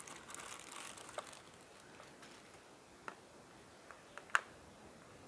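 Plastic packaging of multimeter test probes rustling as it is opened, then a few light clicks and taps as the probes are handled, the sharpest about four seconds in.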